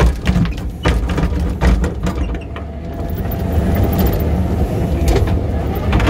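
Kubota SVL95 compact track loader's diesel engine running steadily. Several sharp clanks and knocks come in the first two seconds and another near the end.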